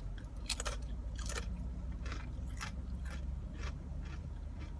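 Close-up chewing and biting of crunchy food, a crackly crunch every half second or so, over a steady low hum of a car heater.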